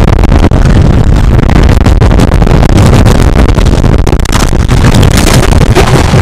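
Colossus wooden roller coaster train rattling and rumbling along its track at speed, heard from on board, very loud and distorted, with wind rushing over the microphone.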